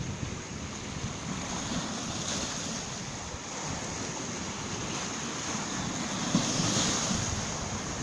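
Small Baltic Sea waves washing in over a pebble and boulder shore: a steady surf hiss that swells a little louder near the end as a wave breaks.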